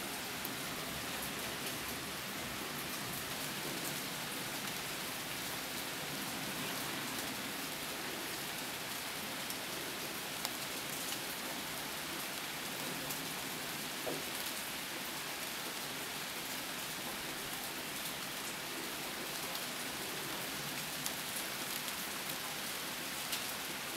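Steady rain falling: a constant hiss with scattered sharper ticks of single drops.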